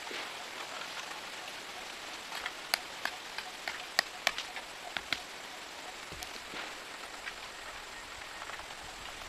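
Steady hiss of rain, with a cluster of sharp, irregular taps about two to five seconds in.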